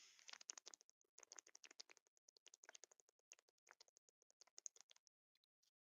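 Quick, faint, irregular clicking and scratching from hands rubbing the face close to a headset microphone, stopping about five seconds in.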